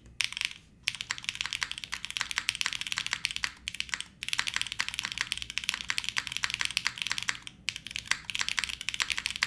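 Fast continuous typing on an O-ring-mounted Cat:( custom mechanical keyboard with H1 switches in an aluminium plate and GMK keycaps: a dense run of quick key clacks, broken by brief pauses about a second in, around four seconds and near eight seconds.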